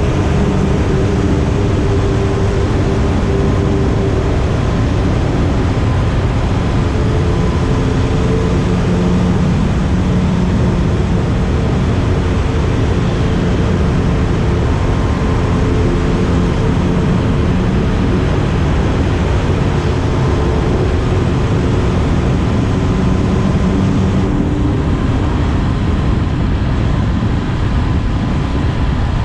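Honda 400X's parallel-twin engine running steadily while riding, with loud wind rush on the microphone. The engine's tone fades into the wind noise about 24 seconds in.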